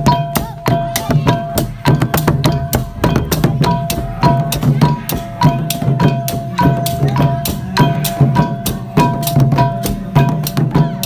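Chhay dam drum music: several small hand drums, slung at the waist and struck with the palms, beaten together in a fast, even beat, over a steady held high tone.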